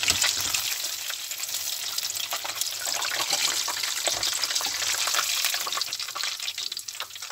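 Battered chicken deep-frying in a pot of hot oil: a steady, crackling sizzle full of tiny pops, dipping slightly near the end.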